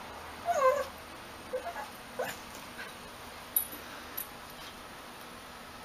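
Shiba Inu whining: one drawn-out whine that bends up and down about half a second in, then a few short yips over the next two seconds. Two sharp clicks follow a little later.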